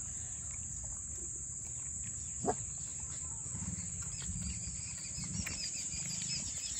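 Steady high-pitched chirring of crickets, with one short, louder call or squeak about two and a half seconds in.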